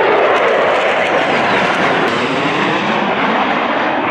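Jet noise from USAF Thunderbirds F-16 fighters flying a display pass overhead: a loud, steady rush of sound.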